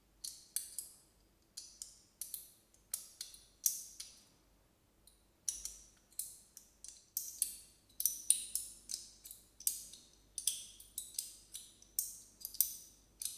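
Sliding magnetic fidget toy being slid back and forth, its pieces snapping into place in a string of sharp clicks, unevenly spaced at about two or three a second.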